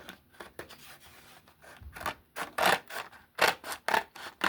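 A Hot Wheels blister pack being opened: an irregular run of crinkling, cutting and tearing sounds of plastic and card, louder from about two seconds in.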